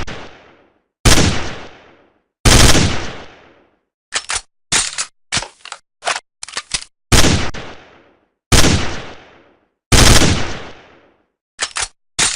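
Gunshot sound effect: five loud single shots, each ringing off for about a second, with quick runs of shorter, sharper bangs in between, around four to seven seconds in and again near the end.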